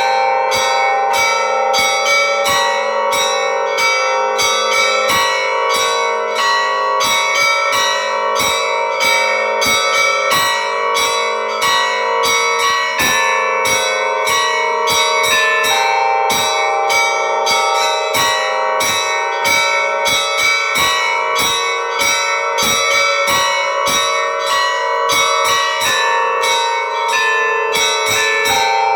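Church bells ringing in a continuous peal: several bells of different pitches struck in quick succession, about three strikes a second, their tones ringing on and overlapping.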